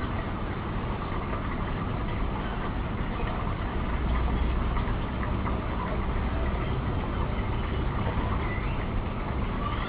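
Steady low rumbling noise without breaks.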